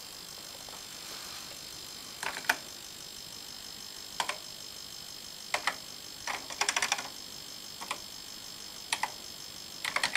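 Keys pressed on a ZX Spectrum computer keyboard while typing a command: short, irregular clicks every second or so, with a quick run of several about two-thirds of the way through. A steady faint high whine runs underneath.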